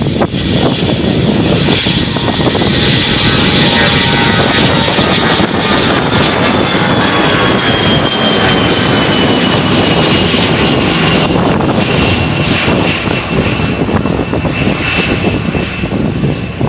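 Antonov An-148's twin D-436-148 turbofan engines at take-off power: a loud, steady roar with a high whine that slowly falls in pitch as the jet passes.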